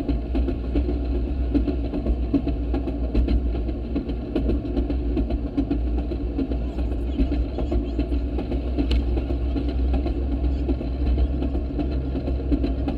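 Railroad speeder (track motorcar) running along the rails: its small engine's steady drone, with frequent clicks and rattles from the car and its steel wheels on the track.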